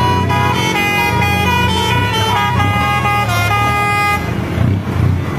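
A lorry's musical air horn plays a tune of held notes that step from pitch to pitch, over the low running of diesel truck engines. The horn stops about four seconds in, leaving the engine noise.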